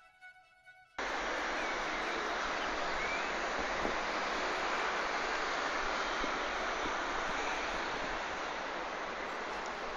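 Soft violin music stops about a second in, and a steady roar of outdoor city street noise cuts in abruptly: road traffic and hiss picked up by a handheld phone's microphone.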